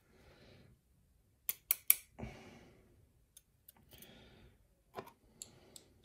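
Small metal clicks of steel tweezers working in the pin chambers of a pin-tumbler lock plug as it is gutted: three quick clicks about a second and a half in, a duller knock just after, and a few scattered clicks near the end.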